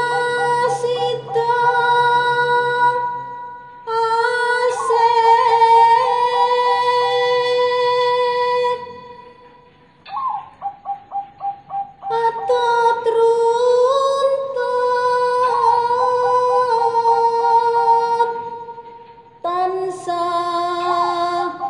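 Music with a high, woman's-range voice singing long held notes over a steady drone. Phrases break off a few times, and near the middle there is a quick run of short repeated notes.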